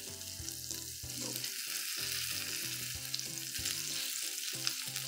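Fish tikka pieces on skewers sizzling and crackling steadily in a little oil on a hot iron tawa, with background music underneath.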